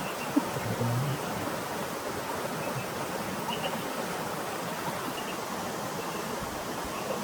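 Steady rain falling, an even hiss throughout, with a single sharp click about half a second in and a brief low pitched sound ending about a second in.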